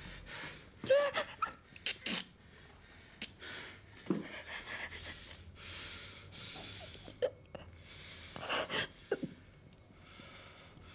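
A person's short, broken vocal sounds and breaths, about eight of them spaced irregularly, the loudest about a second in.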